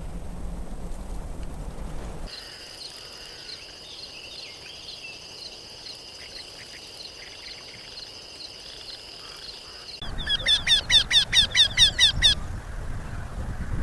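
Birdsong with abrupt cuts between recordings: first a low rumble of wind-like noise, then two steady high shrill tones with faint chirps over them. About ten seconds in, the loudest part begins: a bird sings a fast run of downward-sweeping notes, about seven a second, for roughly two seconds.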